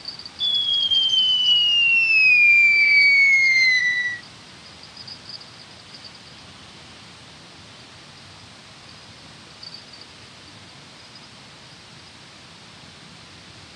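Fishing line paying off the reel during a long cast: a loud whine that falls steadily in pitch for nearly four seconds as the rig flies out, then stops abruptly.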